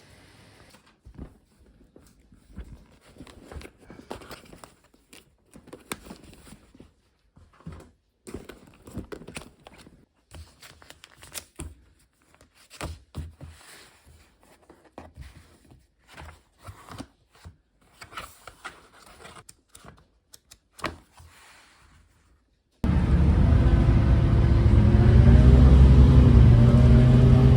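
Irregular soft rustles, scrapes and light knocks of something being handled close up. About 23 seconds in there is an abrupt cut to a loud motor vehicle engine running, its pitch wavering slightly.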